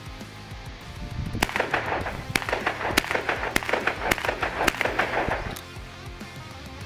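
Panzer Arms M4 semi-automatic 12-gauge shotgun fired in a quick string of about six shots, roughly two a second, over background music.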